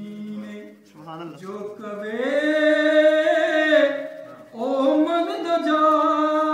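A man singing an unaccompanied devotional song, drawing out two long held notes: the first begins about two seconds in, the second after a short break.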